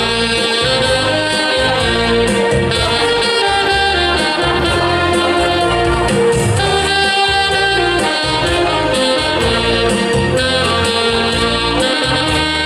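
A saxophone ensemble of alto and tenor saxophones playing a Hakka folk-song melody in unison, with a bass line and a steady beat beneath.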